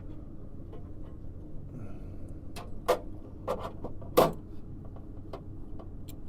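A few sharp clicks and knocks of hand work on the wiring and hardware of a VAV electric reheat control board, the loudest about four seconds in, over a steady low hum.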